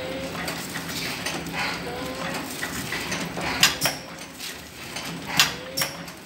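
Multi-track sachet packing machine running, with a steady hum and short rising squeaks every couple of seconds. Sharp mechanical clacks come twice in quick succession a little past halfway, and once more near the end.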